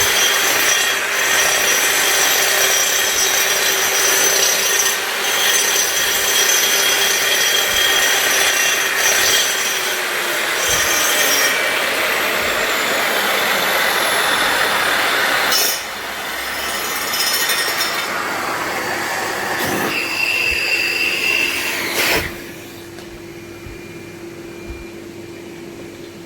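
A 230 mm Hitachi angle grinder grinding a floor under a bristle-skirted dust shroud, a loud rasping grind over a steady motor whine. About ten seconds in, the motor's pitch falls as the grinder winds down. After a few smaller noises the sound drops to a quieter steady hum near the end.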